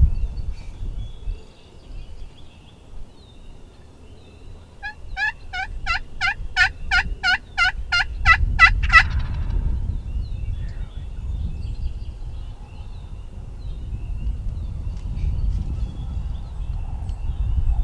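A run of about a dozen turkey yelps, evenly spaced at roughly three a second over about four seconds, growing louder toward the end.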